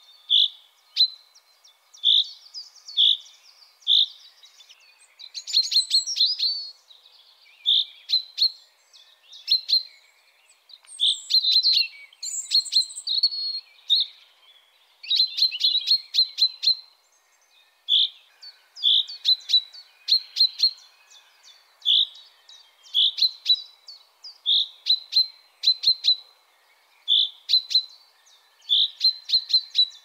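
A songbird repeats a short, high call about once a second. Between the calls come stretches of rapid clicking chatter and brief trills.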